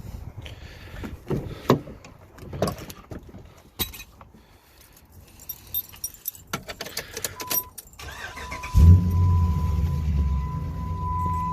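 Keys jangling and door and cab handling clicks, then a steady warning tone starts, and about nine seconds in a pickup truck's Hemi V8 with a Flowmaster exhaust starts and settles into a steady idle.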